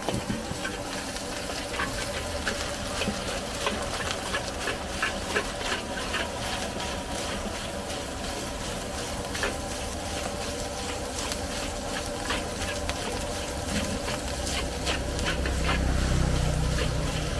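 Metal spatula scraping and knocking against a large wok as fried rice is stir-fried, over steady sizzling. A gas wok burner runs underneath, its low rumble growing louder near the end.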